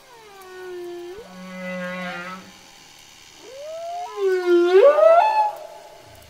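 Humpback whale song: two long calls that slide in pitch. The first falls, then rises and holds steady. The second is louder, swooping down and then rising sharply near its end.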